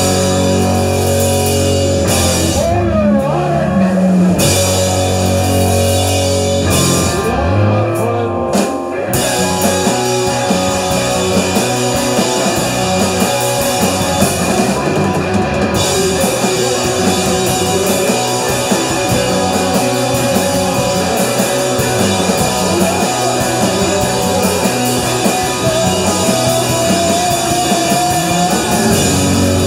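A live rock band playing loudly on electric guitars, bass and drum kit. For the first several seconds it is heavy, sparse guitar and bass chords; about nine seconds in the drums and cymbals come in fully and the whole band drives on steadily.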